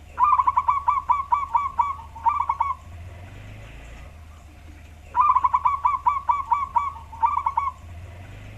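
Wild local zebra dove (perkutut) male singing its cooing song twice, a deep-toned voice: each phrase is a fast run of short coos, then a brief pause and a final few coos. A low steady hum runs underneath.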